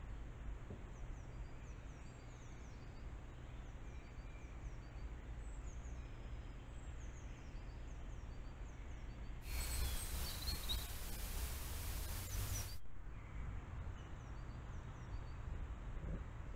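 Faint songs of small forest birds, short high notes repeating, over a low steady rumble. About halfway through, a loud even hiss lasts about three seconds and then stops suddenly.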